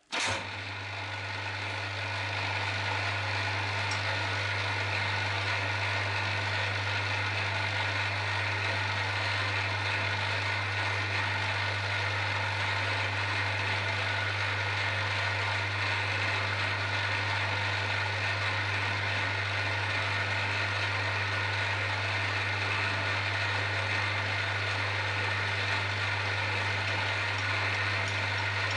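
7045 milling machine switched on and running steadily at low spindle speed, with a low electrical hum under the motor and gearhead noise. The cutter is turning but not cutting the pinion shaft, because the y-axis was moved the wrong way.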